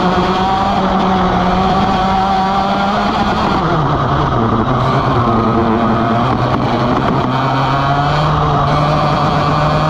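Vortex ROK GP 125cc two-stroke kart engine running hard on a lap. Its pitch falls sharply about four seconds in as the kart slows for a corner, holds low, then climbs steadily again as it accelerates out.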